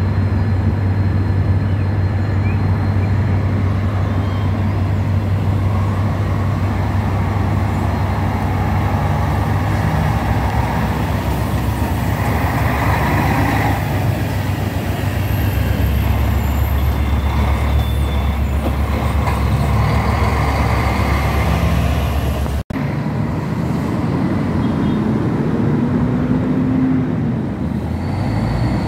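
Diesel engines of intercity coaches running as they pull out of the bus station and pass close by, a steady low rumble, with a short rising engine note near the end as another coach pulls away.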